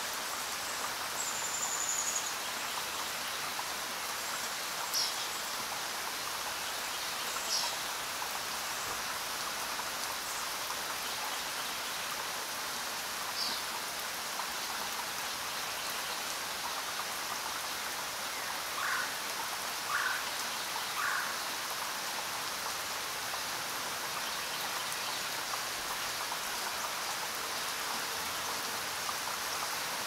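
Steady rain, an even hiss with no let-up, with a few brief bird chirps scattered through it, including three short calls about two-thirds of the way in.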